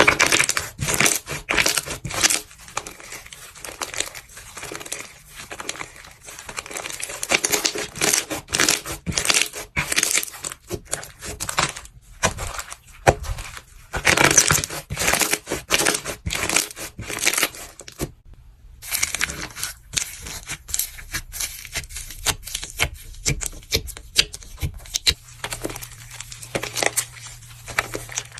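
Dense crackling and crunching of a crunchy craft material, such as dry clay or crunchy slime, being pressed and crushed by hand: a fast, irregular run of sharp crackles, with a brief break about two-thirds through.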